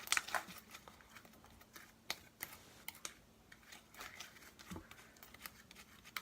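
Homemade slime being squeezed and kneaded by hand, giving off irregular sharp clicks and little pops as air pockets in it snap, densest and loudest near the start and thinning out after.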